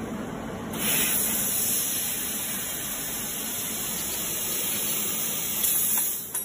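Handheld fiber laser cutting head cutting thin sheet metal, with a steady hiss of gas rushing from its nozzle. The hiss starts about a second in and cuts off just before the end.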